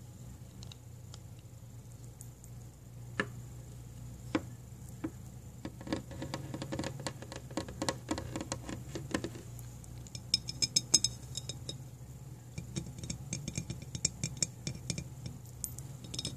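Fingernails tapping and scratching on the camera close to the microphone. A few single clicks come first, then a fast run of light taps, and about ten seconds in there is a short burst of bright, glassy clinks.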